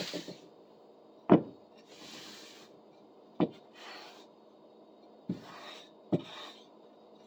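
Rag rubbing WD-40 into a wooden saw handle in short wiping strokes, with a few sharp knocks of wood on a hard surface, the loudest about a second in.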